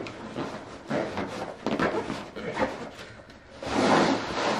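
Camouflage hunting bag being handled and opened on a table: fabric rustling and scraping in several short bursts, growing louder and busier near the end as the bag is pulled open.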